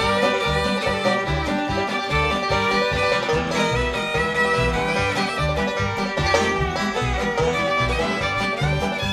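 Background music in a bluegrass style, fiddle and banjo over a steady bass beat.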